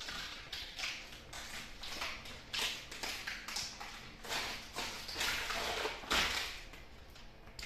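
Frosted vinyl window film being stripped off glass: a series of irregular rasping, tearing strokes of varying length.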